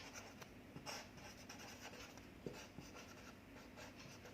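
Faint scratching of handwriting in short, separate strokes.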